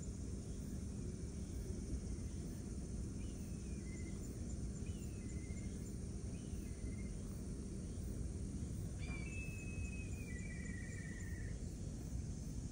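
Outdoor ambience: a steady low rumble with wild birds calling, three short falling calls a second or two apart, then one longer call about nine seconds in. Faint rapid high ticking sounds now and then.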